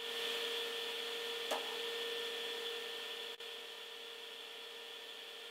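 Steady electric hum, even and unchanging, with one short knock about one and a half seconds in.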